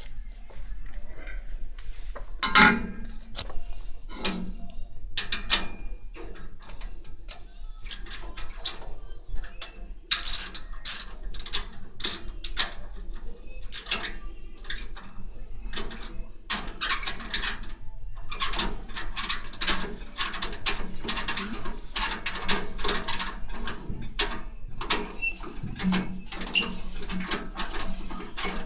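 Metal clinks and knocks from parts and hand tools on a steel stove. In the last third they turn into a long run of fast ratcheting clicks, like a wrench turning the bolts.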